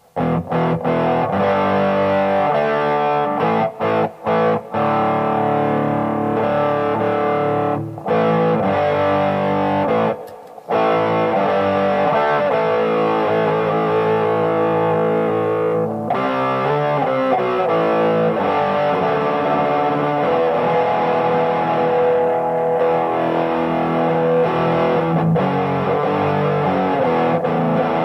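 1982 Made-in-Japan Tokai Silver Star electric guitar played through an amplifier with a distorted tone, sounding continuously with a few brief breaks in the first eleven seconds.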